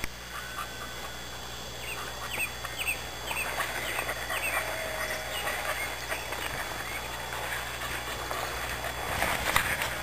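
Small birds singing and calling, a string of short chirps and whistled notes over a steady outdoor hiss, with a brief louder noisy rush near the end.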